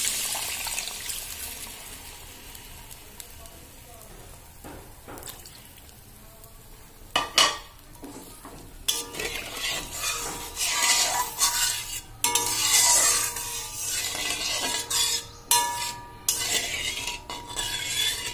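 Water poured into hot, oily fried masala in a metal kadai sizzles and dies away over the first few seconds, as the curry gravy is started. Then a metal spatula stirs the gravy, clinking and scraping against the pan, with now and then a short ringing scrape.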